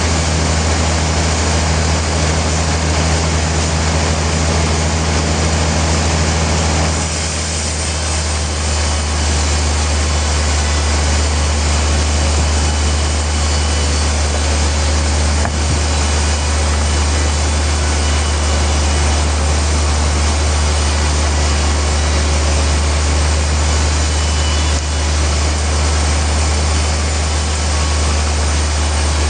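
Sawmill machinery running steadily with a loud, constant low hum under a dense mechanical noise, the sound changing slightly about seven seconds in.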